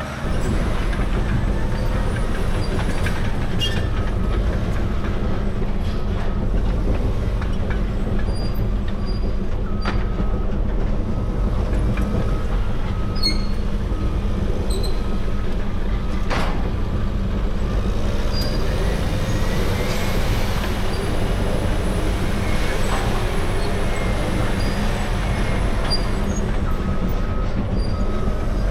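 Caterpillar D6R crawler dozer with its C9 diesel running steadily, its steel tracks clanking and squealing. A backup alarm beeps at times.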